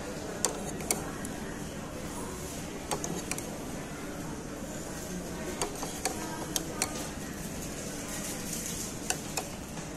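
Restaurant dining-room noise: a steady background murmur with about a dozen sharp clinks and clicks of crockery and cutlery scattered through it.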